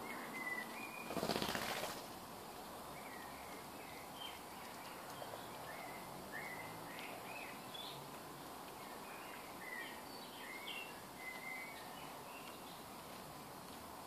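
A group of starlings: a burst of wingbeats about a second in, then short, squeaky chirps scattered through the rest.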